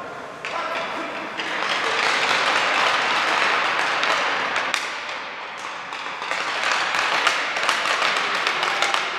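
Clapping and applause in an ice rink, rising twice in swells a few seconds apart.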